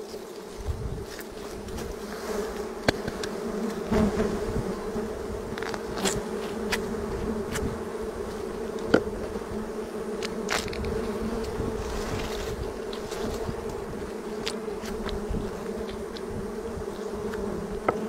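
A swarm of bees buzzing steadily in a dense drone around their comb as it is cut open, with a few short sharp clicks and knocks.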